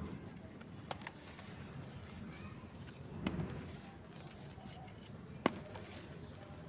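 Dry cement crumbled in the hand and poured from the fist onto a heap of cement dust: a soft gritty crunching and trickling hiss that swells about three seconds in, with a few sharp clicks of hard grains and small lumps landing.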